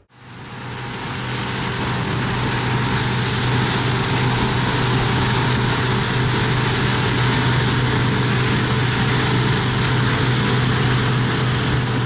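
Claas combine harvester at work, its engine and machinery giving a steady drone with a high hiss. It fades in over the first second or two.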